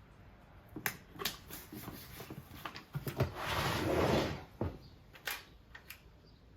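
Hands applying a shipping label to a plastic storage bin: scattered taps and clicks, then a rustling rub about a second long around the middle as the label is pressed flat.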